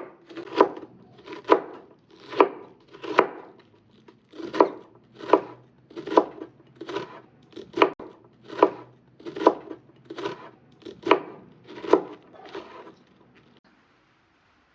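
Knife chopping vegetables on a wooden board in a steady rhythm of about one stroke a second, about fifteen strokes, stopping near the end.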